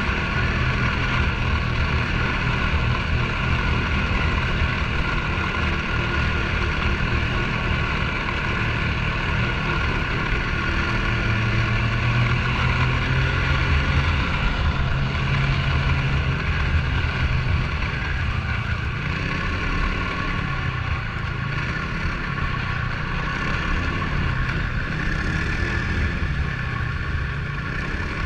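Snowmobile engine running steadily while riding, with a constant hiss over it; in the last several seconds the engine note rises and falls as the throttle changes.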